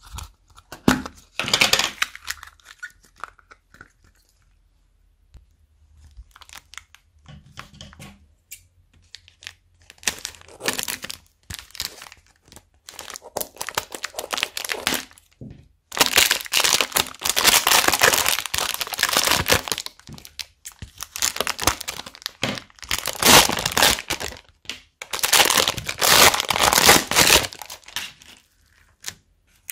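A brick of small foam beads being pressed and crushed by hand, giving crunchy crackling and crinkling. It is sparse and quiet at first, then comes in loud bursts of a few seconds each through the second half.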